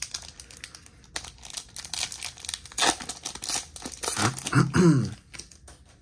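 Foil wrapper of a Topps baseball card pack being torn open and crinkled by hand, a dense run of sharp crackles and rips. A brief low pitched sound comes about four seconds in and is the loudest moment.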